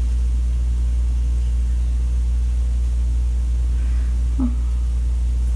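Steady low background hum, unchanging throughout, with one brief faint short sound about four seconds in.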